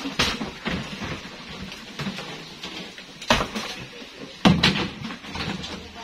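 Scrap washing-machine casings and parts thrown onto a scrap pile, knocking and clattering in a few separate impacts, the loudest about four and a half seconds in.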